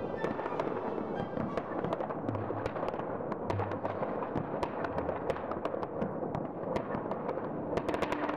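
Many fireworks and firecrackers going off at a distance across a city at once: a continuous rattle of overlapping bangs and crackles, with a cluster of sharper cracks near the end.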